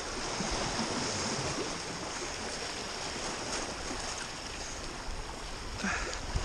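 Sea waves washing, a steady rushing noise, with a few faint brief sounds near the end.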